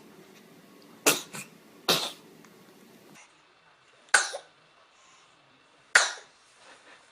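A small child sneezing: four short, sharp sneezes, the first two close together.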